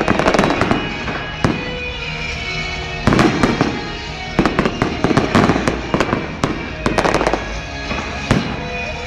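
Fireworks display: shells bursting in rapid clusters of bangs and crackles, with the densest volleys at the start, about three seconds in, around five seconds and again near seven and eight seconds.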